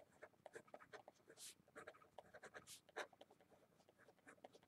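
Faint scratching of a pen writing on paper, a quick irregular run of short strokes as a line of words is written by hand.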